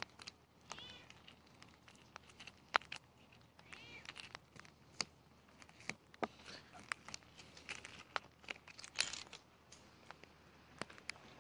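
Fingers tapping and picking at a crust of ice glazing a car's roof and window glass: scattered sharp clicks and small cracks, a cluster of louder ones about nine seconds in.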